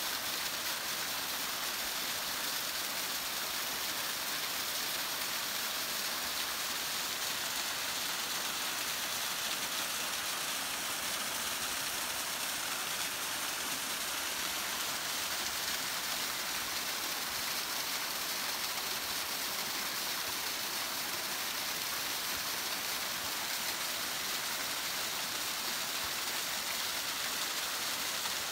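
Small waterfall splashing steadily down granite into a rock pool, running after a good rain: an even rushing hiss.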